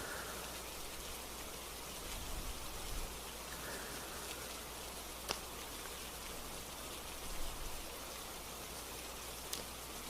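Steady hiss of gentle rain, with a couple of faint sharp ticks, one about halfway through and one near the end.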